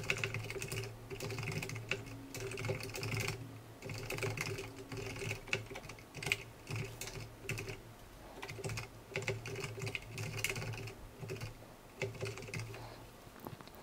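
Typing on a computer keyboard: quick, irregular key clicks in runs, with short pauses between them.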